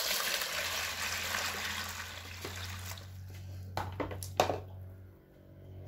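Water poured onto mung beans in a plastic colander, filling it to soak the beans; the splashing pour tapers off about three seconds in. Two sharp knocks follow a little later.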